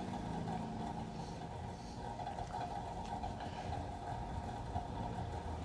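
Steady low mechanical hum, like an engine or motor running in the background, with no distinct strokes or knocks.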